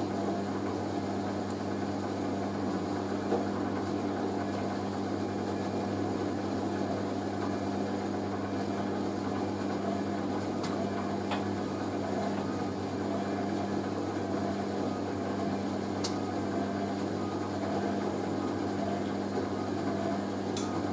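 Hoover A3060 washing machine's drain pump running at the end of the programme, a steady electric hum with a few faint clicks.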